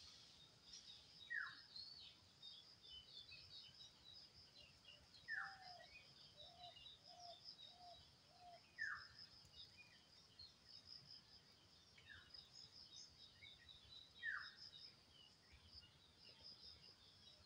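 Faint birdsong: a steady high twittering chorus, through which a short falling whistled call repeats five times, every three to four seconds. About five seconds in comes a brief run of about five lower notes.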